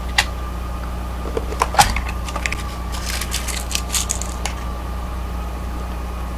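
Small clicks and taps of a Kwikset deadbolt cylinder and a follower tool being handled as the core is pushed out, with two sharper clicks in the first two seconds and a quick run of light ticks midway, over a steady low electrical-sounding hum.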